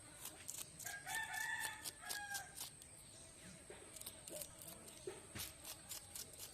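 A rooster crowing once, a single pitched call of about a second and a half starting about a second in. Scattered sharp clicks and taps sound throughout.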